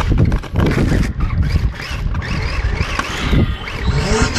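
Remote-control drift car driving over a concrete floor, heard from on board: a rough rattling rumble with a whining pitch that rises and falls.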